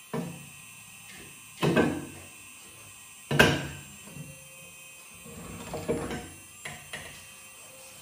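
RC hydraulic excavator's hydraulics working as the arm and bucket move: a series of short mechanical bursts, each starting suddenly and quickly fading, the loudest about three seconds in and a quick cluster near the end.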